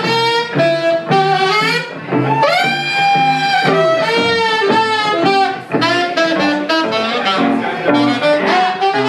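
Saxophone playing a bluesy jazz melody line over electric guitar accompaniment, with a long held note about two and a half seconds in.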